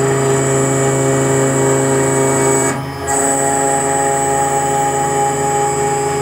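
Homemade mini CNC router milling delrin: the spindle motor and drives run with a steady whine made of several even tones while the end mill cuts. About three seconds in the sound dips briefly, then resumes with a slightly changed tone.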